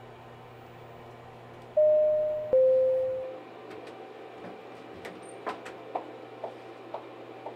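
Elevator arrival chime: two falling notes, a ding-dong, each ringing out, about two seconds in. Then footsteps, sharp clicks about two a second.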